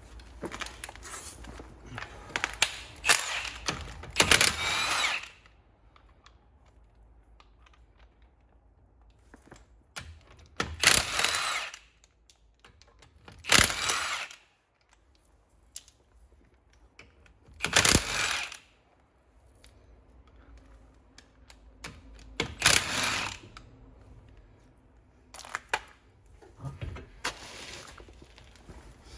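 Power tool run in short bursts of under a second to about a second each, about seven in all, with quieter spells between them.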